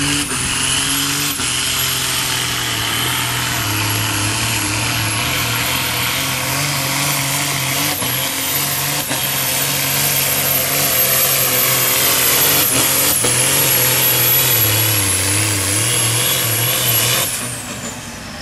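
Ford tractor's diesel engine running at full throttle while pulling a weight sled, with a thin high whine above it. About a second before the end, the whine falls away and the engine sound drops.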